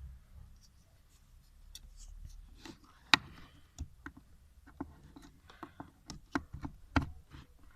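A run of irregular sharp clicks and light knocks, about a dozen, starting a couple of seconds in, the loudest just after the third second.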